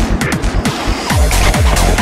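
Electronic dance music with a steady kick-drum beat; the beat drops back during the first second and returns in full after that.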